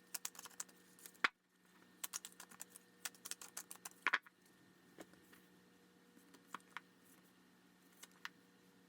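Faint scattered clicks and taps of large, thick-cardstock oracle cards being drawn from the deck and laid down, busiest in the first few seconds and then only a few taps.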